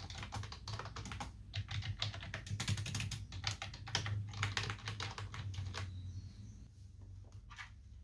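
Fast typing on a Fantech Maxpower MK853 mechanical keyboard: a dense run of key clicks that thins to scattered keystrokes about six seconds in, over a steady low hum.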